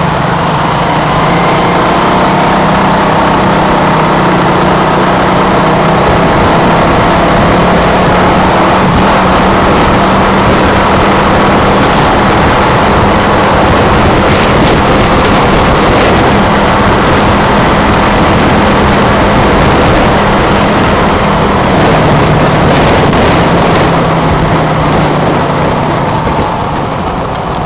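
Engine of a moving vehicle running steadily under loud rushing road and wind noise in traffic. Its pitch drops lower about 22 seconds in as it eases off, and the noise fades a little near the end.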